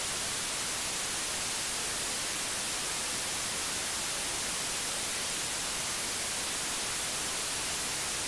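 Steady hiss of broadcast static: even white noise with no tone, beat or voice in it.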